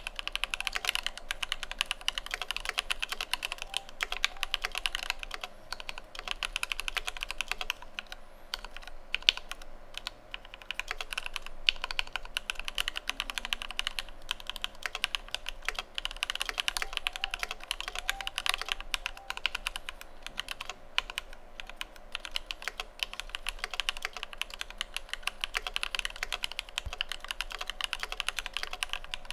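Fast, continuous typing on an Idobao ID80 v1 mechanical keyboard with lubed Alpaca V2 linear switches and PBT Cherry-profile keycaps, giving a dense stream of keystroke clacks.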